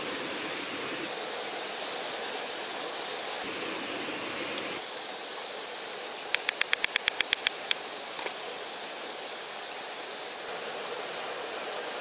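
A steady rushing hiss that dips a little about five seconds in and rises again near the end. A little past the middle comes a quick run of about ten sharp clicks, roughly eight a second, then one more click.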